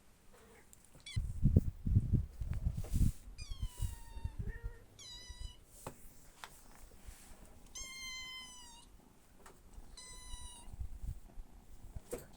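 Domestic cat meowing about four times, the longest call about 8 seconds in, the first one falling in pitch. Low thumps and rustling come in the first few seconds.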